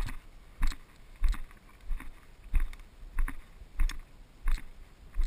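Footsteps of a person walking through field cover, heard from a body-worn camera: a heavy thump with a brushing rustle about every two-thirds of a second, nine steps in a steady rhythm.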